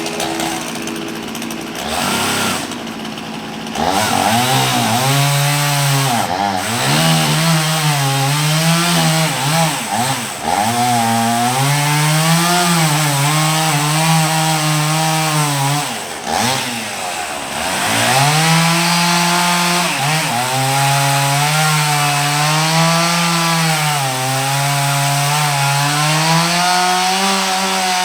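Two-stroke chainsaw running at high revs while cutting wood, its pitch sagging and recovering under load. The throttle drops off briefly twice, about ten and sixteen seconds in, then comes back up.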